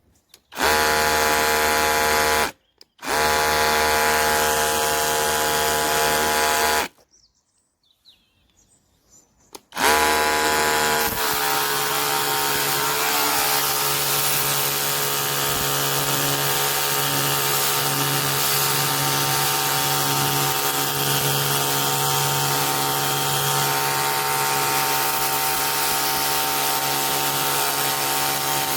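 Cordless pressure washer's electric motor and pump running in two short bursts of a few seconds each, then started again and running steadily with a hiss over its hum.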